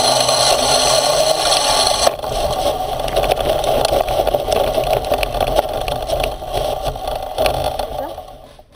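Small air-cooled engine on a motorized off-road skate running steadily under way, with an abrupt change in tone about two seconds in. The sound dies away over the last second or so.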